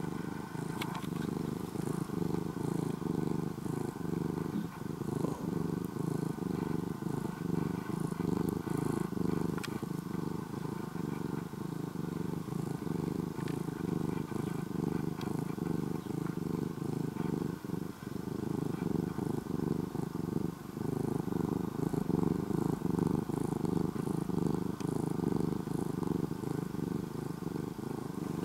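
An orange-and-white domestic cat purring steadily, very close to the microphone.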